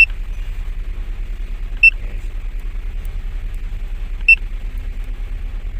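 Three short, high beeps from an OBD scan tool's keypad as its keys are pressed to erase stored trouble codes. Under them, the steady low rumble of a car engine idling.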